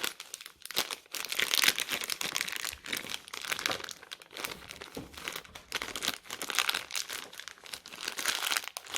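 Packaging crinkling and rustling with irregular crackles as it is handled. The material is most likely plastic wrapping around vacuum parts being unwrapped.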